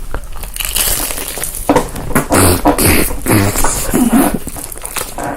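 Close-miked eating sounds: loud crackly crunching and wet mouth noises as food is bitten and chewed.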